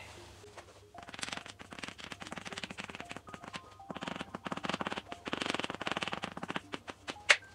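Chalk writing on a blackboard: a rapid, irregular run of sharp taps and scratches as characters are written, starting about a second in and stopping just before the end, with one louder tap near the end.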